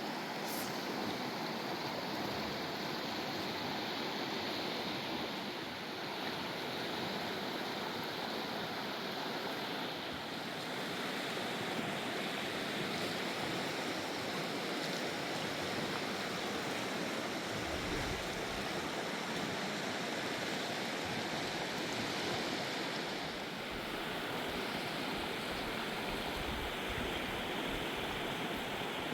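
A fast, raging river rushing steadily.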